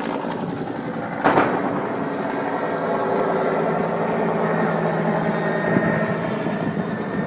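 Helicopter flying overhead, its engine and rotors making a steady drone. About a second in there is one sharp, loud bang.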